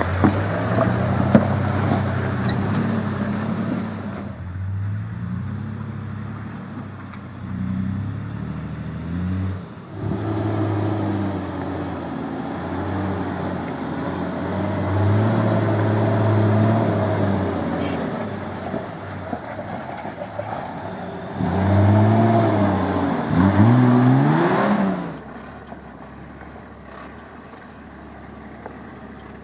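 Toyota Land Cruiser 80 series engine revving up and down under load while climbing a steep, slippery clay and rock track, in several stretches of rising and falling revs. The hardest revving comes in the last third, then cuts off suddenly, leaving a quieter engine running.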